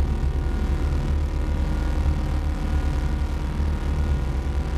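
Steady, deep rumbling drone with a low hum and layered held tones above it, the ominous ambient sound bed of a horror clip.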